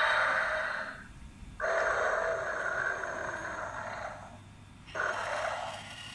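Godzilla coin bank toy's small built-in speaker playing a Godzilla roar sound effect, heard as three growling bursts. The first ends about a second in, a long one runs from under two seconds to past four, and a short one comes near the end.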